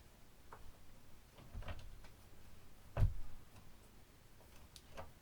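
Scattered light clicks and taps of hand work on a loudspeaker woofer's mounting screws, with one dull, heavier thump about three seconds in.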